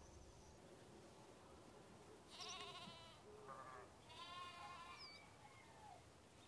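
Goat bleating faintly twice, quavering calls about two and four seconds in. A thin, steady insect buzz stops about half a second in.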